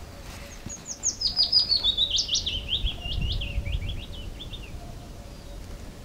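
A songbird sings one song: a quick run of short, sharp notes that steps down in pitch over about four seconds. A low rumble sits underneath.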